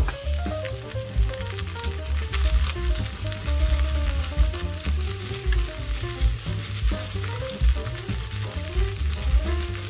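Egg fried rice sizzling in a hot nonstick frying pan as it is stirred with a silicone spatula, sesame oil just drizzled in at the last stage of cooking. Background music plays over the sizzle.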